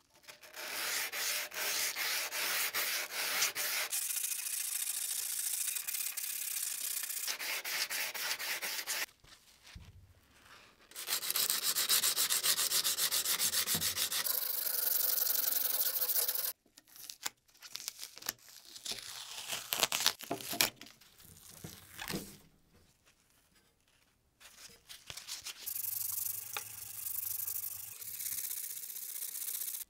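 Hand sanding of a serrated metal guillotine blade with a sanding block and sandpaper. The fast back-and-forth strokes come in several spells of a few seconds each, with short pauses between them.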